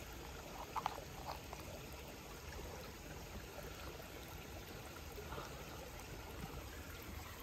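Spring water trickling steadily, with a few faint clicks about a second in.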